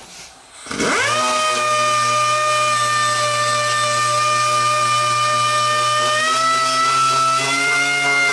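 Power disc sander fitted with a 220-grit disc, spinning up about a second in and then running steadily as it lightly sands a Bondo skim coat; its pitch edges up a little in the last couple of seconds.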